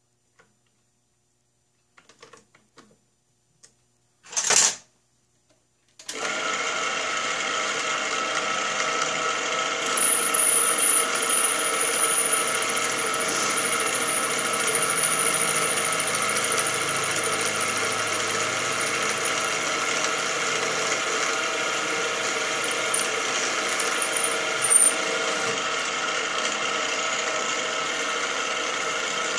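A few light clicks and a short loud clatter, then about six seconds in a small mill head's spindle motor starts and runs steadily, a steady hum of several constant tones, while a drill is fed down to drill the pin hole through the piston valve. A thin high whistle rides on top for a few seconds around the middle.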